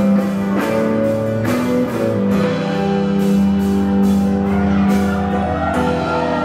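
Live rock band playing, with electric guitar over drums. After about two and a half seconds the drum strokes stop and the band holds a long chord.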